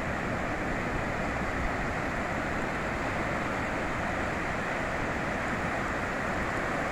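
Ocean surf on a beach: a steady, even rush of waves with no single crash standing out.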